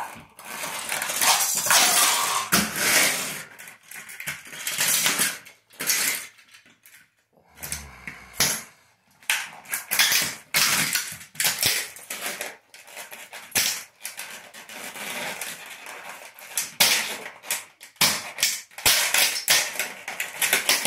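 Plastic toy engine being crushed under high-heeled sandals on a tile floor: irregular cracking and crunching with broken plastic pieces clattering, in bursts with a lull in the middle.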